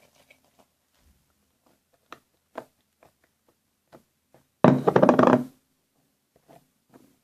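Homemade slime being handled and kneaded: scattered small sticky clicks and taps, then a louder noise lasting about a second about two-thirds of the way through.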